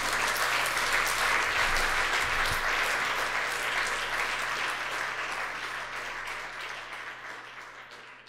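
Audience applauding, many hands clapping at once, slowly fading away toward the end.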